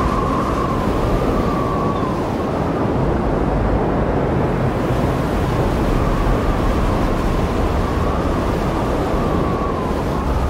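Heavy storm surf breaking on the shore, a steady dense wash of noise, with wind blowing across the microphone.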